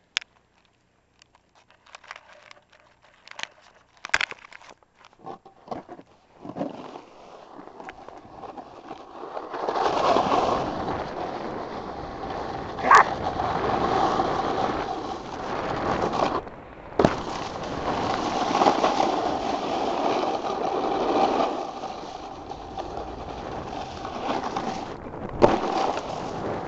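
Snowboard sliding over packed snow: a few scattered clicks and crunches, then from about ten seconds in a continuous loud scraping rush, broken by a sharp knock near the middle and another near the end.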